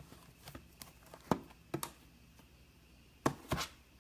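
A few light knocks and taps as sealed trading-card boxes are handled and set down on a table: about five separate knocks, the sharpest a little past a second in and two close together near the end.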